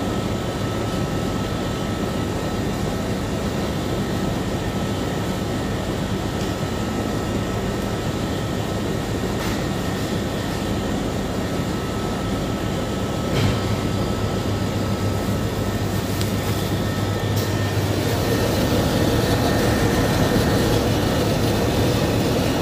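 Steady drone of running machinery. About halfway through there is a single click, and a low steady hum joins for a few seconds.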